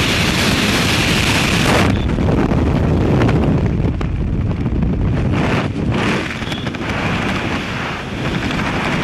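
Heavy freefall wind noise on a skydiver's camera microphone. It drops suddenly about two seconds in as the parachute opens, then gives way to lower, uneven wind buffeting under the open canopy.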